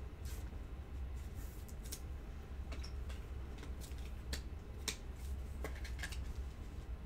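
A trading card being slid into a clear plastic penny sleeve and rigid top loader: scattered soft plastic rustles and small clicks, over a steady low hum.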